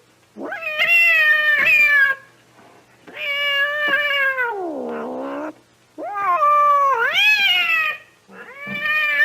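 Cat yowling: four long, drawn-out howls with short pauses between them, each sagging a little in pitch. The second one sinks into a low moan at its end.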